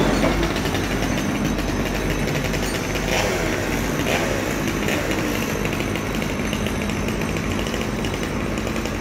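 An engine running steadily, from the machinery working on the tree.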